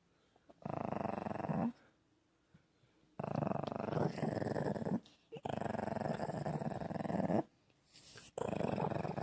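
Shih Tzu making rough, rumbling throat sounds in four long bursts of one to two seconds each, with short quiet gaps between them.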